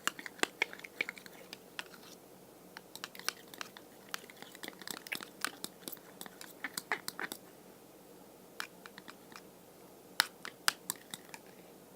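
Glue and activator being worked by hand into slime: irregular sticky clicks and wet squelches, thinning out for a couple of seconds after the middle.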